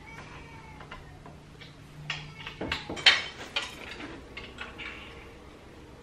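Scattered knocks and clicks of a Delta Children wooden mini crib's parts being handled and fitted together during assembly. The sharper knocks bunch up between about two and four seconds in, and the loudest comes just after three seconds.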